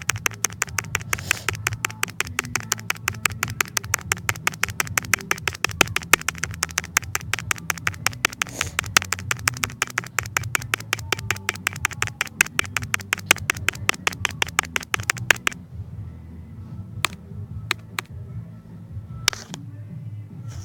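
Rapid, even tapping, about eight sharp taps a second, that stops about fifteen seconds in, followed by a few single taps.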